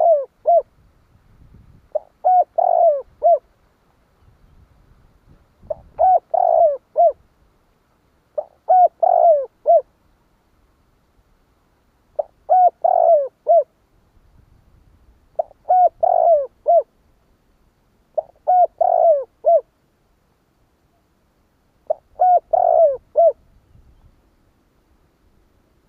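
Spotted dove cooing: a short phrase of three or four quick notes, repeated about every three seconds.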